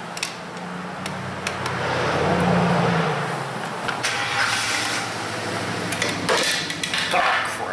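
A motor vehicle's engine running steadily, swelling to its loudest about two to three seconds in and then fading. Small sharp clicks sound through it, from a screwdriver working on a plastic armrest cover.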